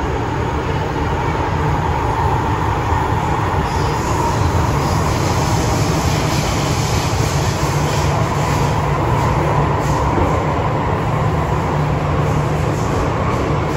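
Running noise inside an MTR M-Train metro car: a steady wheel-on-rail rumble with a hum and a higher hiss, heard from inside the car as the train travels between stations.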